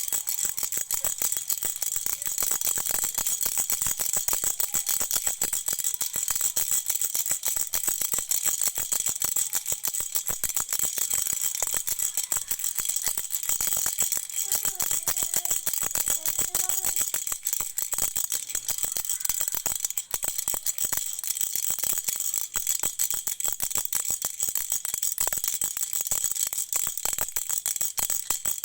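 A rattle shaken continuously: a steady, dense stream of rapid rattling clicks without pauses.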